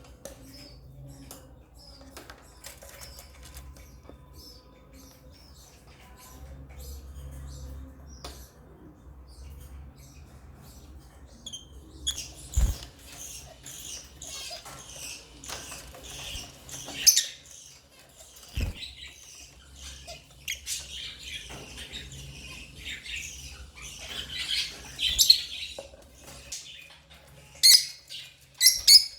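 Lovebirds chirping: scattered short chirps at first, becoming a busy stretch of rapid, overlapping chirps about a third of the way in, loudest near the end. Two brief low thumps fall in the busy stretch, over a faint low hum.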